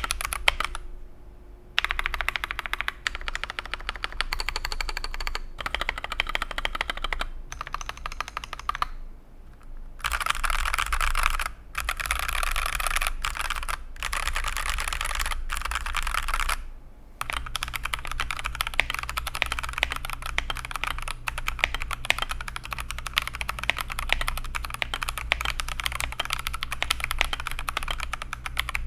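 Fast typing on a mechanical keyboard fitted with Akko switches: a dense, continuous clatter of keystrokes. It is cut together from several short takes, so the sound changes abruptly a number of times, with brief gaps.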